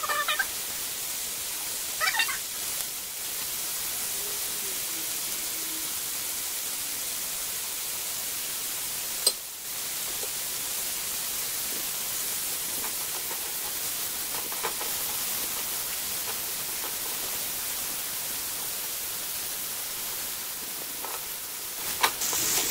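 Carrot sticks and mushrooms frying in oil in a nonstick pan: a steady sizzling hiss, broken by a few clicks, the sharpest about nine seconds in.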